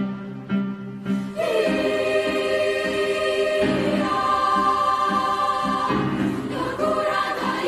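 Youth mixed choir singing held chords with piano accompaniment, swelling to a fuller sound about a second and a half in, over a rhythmic low pulse.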